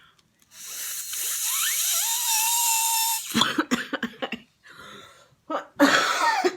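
A person blowing hard into the opened shell of a boiled egg to force the egg out through the bottom: a rushing hiss of breath with a whistling tone that rises and then holds steady, lasting about two and a half seconds. Short breathy vocal sounds follow, like coughs or laughs.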